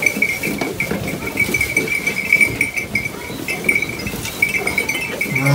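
Sheep feeding at a hay feeder: an irregular rustling of hay and straw, with a steady, high, pulsing chirp running underneath.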